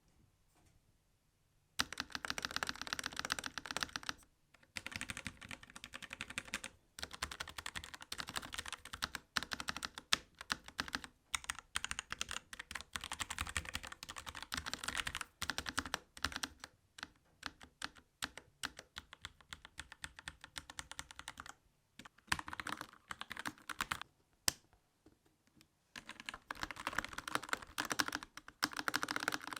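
Fast typing on a Kemove K68 65% mechanical keyboard with Cherry MX Red linear switches and low-profile PBT keycaps: a dense, continuous patter of key presses. It starts about two seconds in, with a few short pauses.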